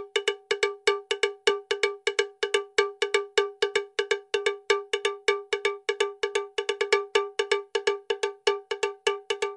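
A background track of short, pitched percussion hits on one steady note, repeating quickly and evenly at about five strikes a second.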